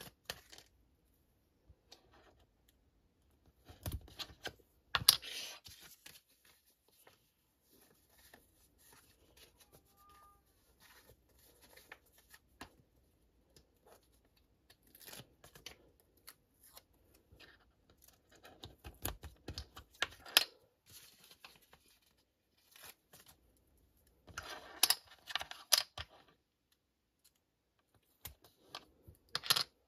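Stickers being peeled from a backing sheet and pressed onto small Playmobil plastic parts: intermittent peeling, rustling and light plastic clicks. The loudest handling comes about four and five seconds in, around twenty seconds, at about twenty-five seconds and near the end.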